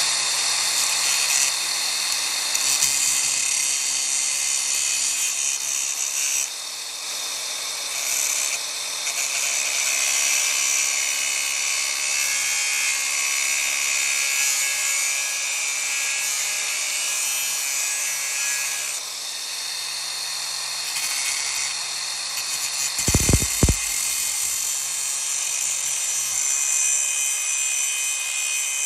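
DeWalt 60V cordless angle grinder running steadily as it cuts through a bolt: a high whine with a grinding hiss that eases and builds as the load shifts. There are a couple of sharp knocks about three-quarters of the way through.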